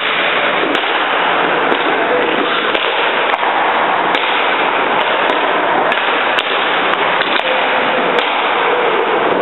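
Steady, loud rush of indoor ice-rink noise, with scattered sharp clicks and clacks.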